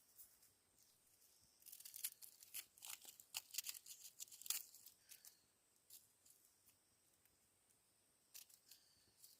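Faint crinkling and tearing of a plastic food packet being opened and handled: a quick run of sharp crackles for a few seconds, then a few scattered ones near the end.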